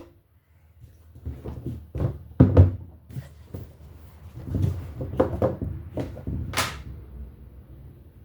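Irregular knocks, thuds and rustling of kitchen things being handled as flour is got ready for measuring, loudest about two and a half seconds in, with a sharp click near the end.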